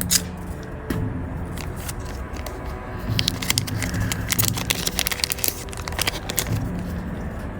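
Crinkling of a foil booster pack wrapper and cards being handled: a run of quick crackles and clicks, thickest around the middle.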